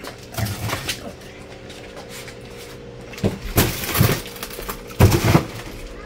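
Frozen whole chickens knocking and clattering against each other as they are packed in, in three bursts: about half a second in, about three and a half seconds in, and about five seconds in, over a steady hum.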